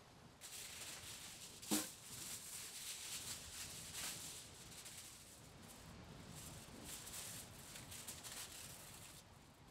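Aluminium foil crackling and rustling as it is pulled off the roll, spread out and folded by hand, with many small crinkles and one sharp, louder snap about two seconds in.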